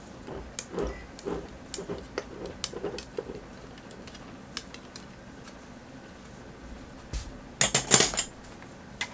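A plastic bubble-remover tool tapping and scraping against glass canning jars packed with green beans in brine, a string of light clicks and knocks over the first few seconds. A little before the end comes a short, louder clatter of kitchenware being handled.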